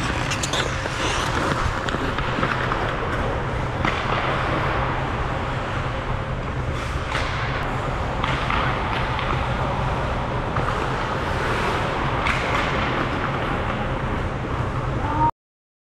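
Pick-up ice hockey on an indoor rink: skates scraping the ice and scattered sharp clacks of sticks and puck over a steady low hum. The sound cuts off suddenly near the end.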